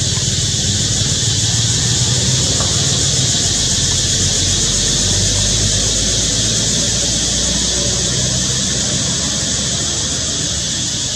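Steady, shrill high-pitched drone of cicadas in the forest trees, with a low steady rumble underneath.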